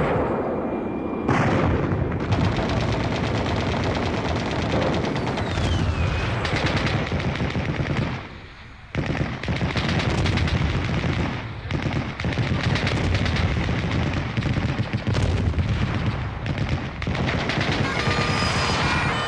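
Sustained gunfire from a WWII battle reenactment, machine-gun bursts and rifle shots fired in rapid succession, with a brief lull about eight seconds in. A tune begins near the end.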